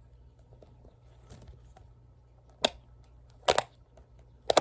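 Plastic fidget toys being handled, giving three short, sharp clicks about a second apart in the second half, over a faint low room hum.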